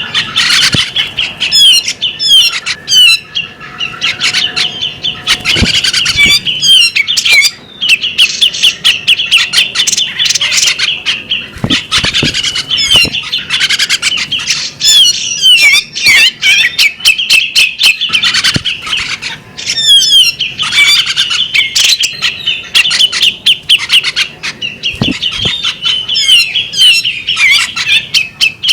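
Female magpie-robin singing a long, continuous song of rapid whistled and chattering notes, mixed with harsher calls. A few dull knocks are heard now and then.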